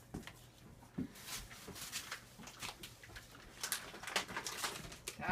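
Faint, scattered clicks and soft rustles of pets taking and eating treats.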